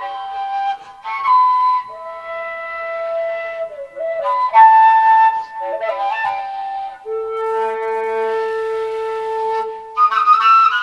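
Music: a flute playing a slow melody of long held notes, with quick ornamented runs at the start and near the end.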